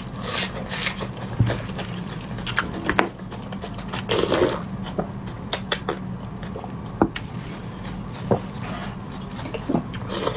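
Close-up wet eating sounds of beef bone marrow being sucked and chewed: many sharp lip smacks and mouth clicks, with a longer slurp about four seconds in, over a steady low hum.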